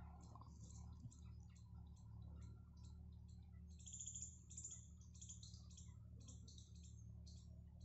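Faint outdoor ambience: scattered high clicks and chirps, with a brighter run of short chirps about four seconds in, over a low steady hum.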